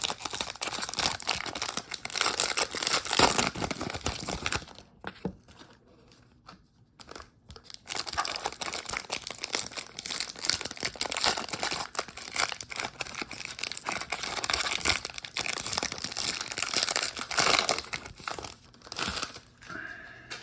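Crinkling and tearing of baseball card pack wrappers being torn open and handled, with a quiet pause of about three seconds from about five seconds in.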